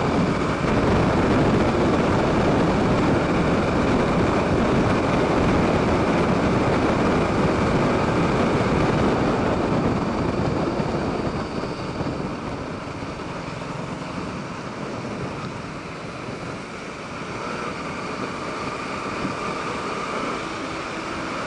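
Wind rushing over the microphone with the engine and road noise of a Bajaj Pulsar RS 200 motorcycle ridden at about 50–70 km/h. The rush eases after about ten seconds and builds a little again near the end.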